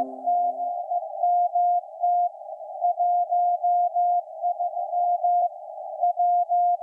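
Morse code from maritime coast station KPH, received on shortwave at 12808.5 kHz through an SDR in CW mode: a steady tone near 700 Hz keyed in dots and dashes over a narrow band of receiver hiss, with short pauses between groups. A low ringing tone fades out in the first second.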